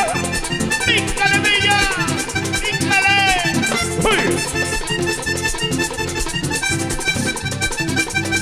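Vallenato band playing a live instrumental introduction, the accordion leading over bass and percussion, with several whooping calls that slide down in pitch in the first half.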